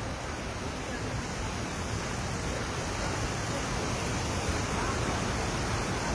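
Rushing river water running high, a steady even noise that grows slightly louder.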